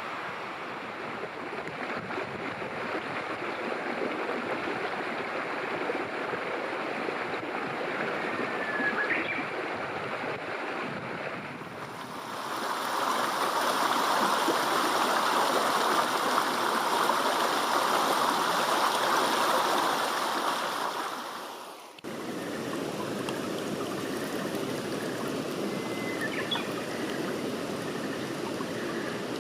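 Steady rush of flowing water. It grows louder for a stretch in the middle that breaks off suddenly, and two short bird chirps sound over it.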